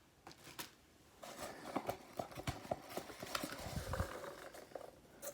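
Items being handled and rummaged in a cardboard box: a couple of faint clicks, then from about a second in a quick, uneven run of light taps, clicks and rustles.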